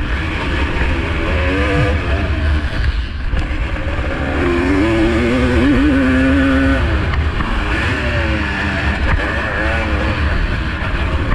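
Two-stroke motocross motorcycle engine running hard, its pitch repeatedly rising and falling as the throttle opens and closes, over a constant heavy low rumble.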